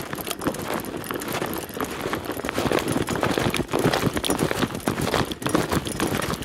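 Mountain bike rolling over a gravel track: tyres crunching on the gravel, with a dense run of irregular clicks and rattles as the bike goes over the bumps.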